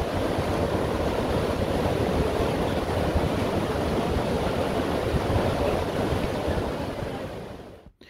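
Fast white-water rapids of the Waikato River rushing through the Huka Falls gorge: a steady rush of churning water that fades out near the end.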